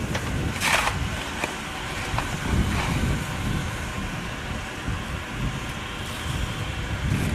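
Narrow-gauge steam locomotive working, a steady low rumble, with one short sharp hiss a little under a second in.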